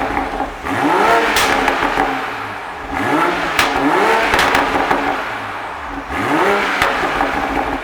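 2020 Toyota Supra's engine blipped four times, each rev climbing quickly and falling back, with exhaust crackles and pops as the revs drop.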